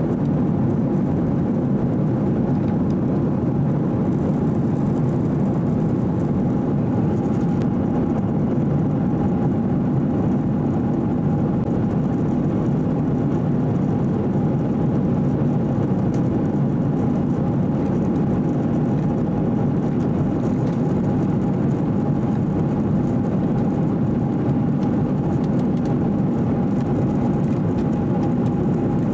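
Steady in-flight cabin noise of a Boeing 737-800: the even rush of airflow and the CFM56-7B turbofan engines, low and unbroken, with a faint steady tone above it.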